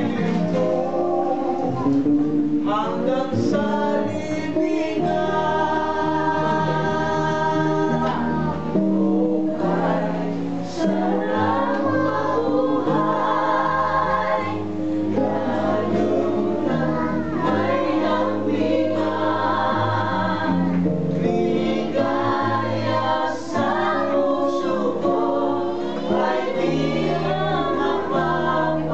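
A group of men and women singing a song together in Tagalog, accompanied by a strummed acoustic guitar.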